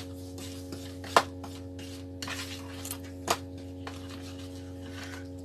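Utensil clinking and tapping against bowls while seasoning is added, with three sharper knocks and some fainter ticks, over a steady electrical hum.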